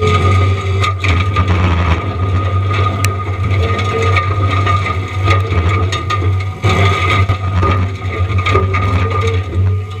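John Deere 333E compact track loader's diesel engine running under load while its Diamond Mower forestry mulching head spins with a steady whine, with the crackling and snapping of pine wood being ground up.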